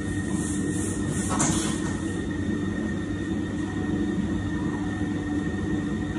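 Large electric stand mixer running steadily, slowly mixing a big batch of butter shortbread dough, with a brief rustling hiss about a second and a half in.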